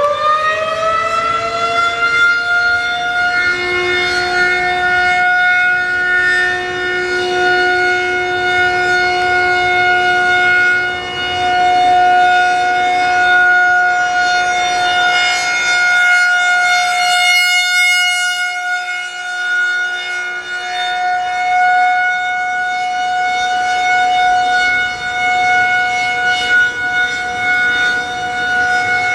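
Federal Signal 2001-130 rotating electromechanical outdoor warning siren sounding a steady, held tone at full pitch during a siren test. Its loudness slowly swells and fades as the rotating horn turns toward and away from the listener.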